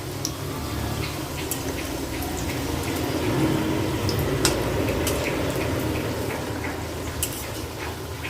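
Kochuri (stuffed dough puffs) sizzling as they deep-fry in oil in a kadai on a low flame: a steady bubbling hiss with scattered crackles over a low hum.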